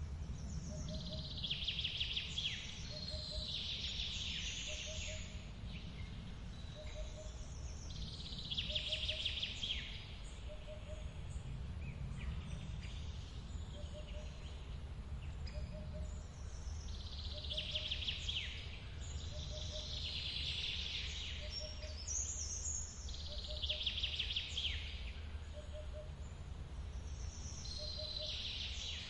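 A songbird sings short, bright phrases every few seconds over a steady low rush of forest stream water. Under them a short low note repeats about every second and a half.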